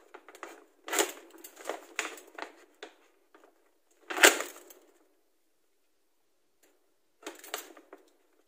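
Paper gift bag rustling and crackling as its closed top is pulled open by hand, in short bursts with one sharp crackle about four seconds in, then a pause of a couple of seconds before more rustling near the end.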